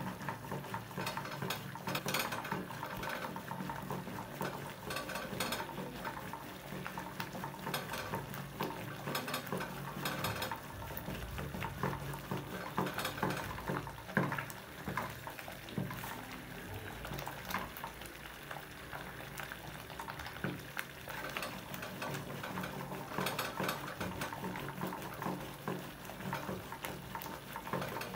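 Wooden churning stick spun back and forth between the palms in a steel pot of cooking stinging-nettle (sisnu) soup, clicking and knocking irregularly against the pot as the thick soup churns and bubbles.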